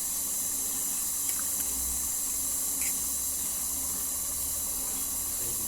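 Stand mixer running steadily, its dough hook turning flour and a yeast-and-milk mixture: an even whirring hiss with a low hum beneath it.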